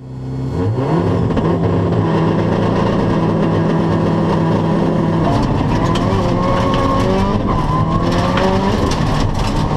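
Subaru Impreza WRX STI rally car's turbocharged flat-four engine, heard inside the cabin: held at steady high revs on the start line for about five seconds, then launching and accelerating hard up through the gears. Sharp crackles come in as it pulls away.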